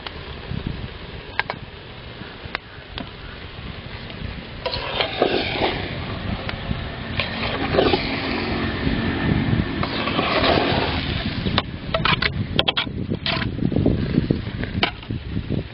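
A perforated metal ladle stirring and turning biryani rice in a large metal pot: bursts of scraping and rustling, with sharp clinks of the ladle against the pot, several close together near the end. A steady low rumble runs underneath.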